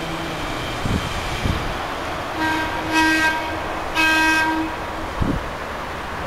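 Horn of the 1905 BC Electric interurban car sounding two short toots, about a second apart, as the car runs away along the track.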